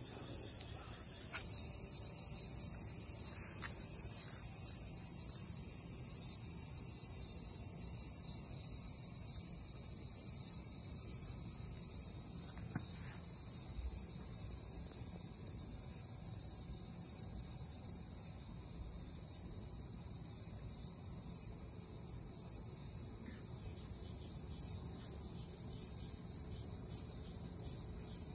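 Steady, high-pitched chorus of insects, abruptly louder about a second in, with a faint chirp repeating less than a second apart later on.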